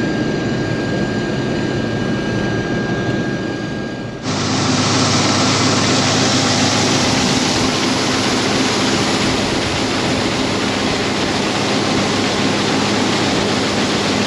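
Heavy diesel harvest machinery running steadily. About four seconds in, the sound changes abruptly to a louder, hissier machine noise with a steady low hum.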